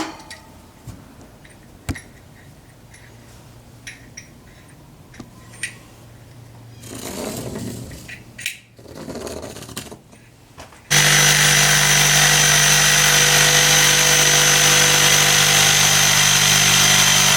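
Light clicks and handling noises, then an electric power tool starts about two-thirds of the way in and runs at a steady, loud whine while cutting through a rubber mat, hot enough to burn the rubber.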